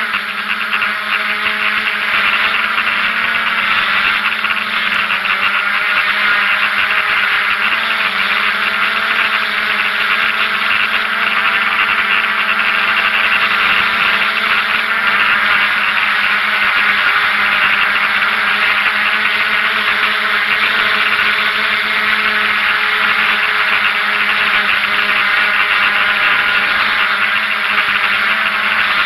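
DJI F550 hexacopter's six electric motors and propellers giving a steady, loud buzzing whine in flight, its pitch wavering slightly as the throttle changes.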